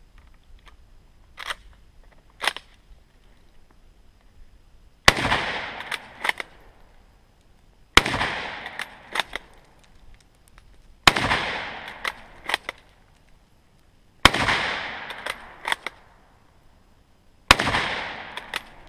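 K98k Mauser bolt-action rifle firing five shots of 8mm Mauser about three seconds apart, each with a long decaying echo. About a second after each shot come two quick clacks as the bolt is worked to chamber the next round, and two similar clicks come before the first shot.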